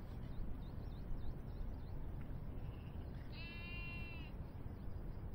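A goat bleats once, a single call of about a second a little past the middle, over steady low background noise.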